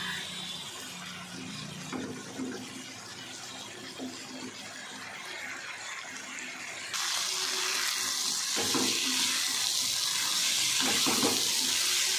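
Potatoes and bori (lentil dumplings) sizzling as they are stir-fried in spiced oil in a pan, with a wooden spatula scraping and knocking now and then. The sizzle's hiss jumps louder about seven seconds in.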